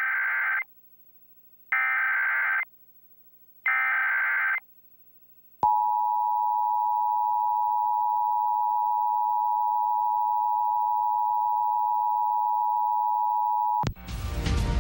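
Emergency Alert System signal: three chirping SAME data bursts of about a second each, then the steady two-tone EAS attention signal for about eight seconds. The tone cuts off near the end and music starts.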